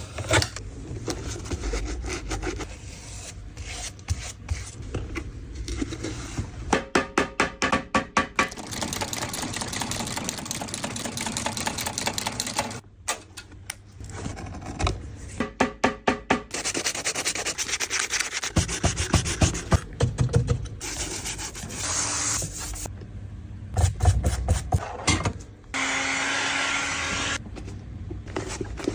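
Rubbing, sanding and rasping of shoe repair work on leather boots, heard in short clips cut one after another. Twice there is a run of quick back-and-forth strokes, about six or seven a second.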